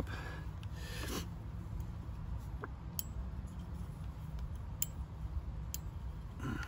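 Metal pot-support arms of a small gas camping stove burner being folded up by hand, giving a few faint sharp clicks about 3, 5 and 6 seconds in, over a steady low rumble.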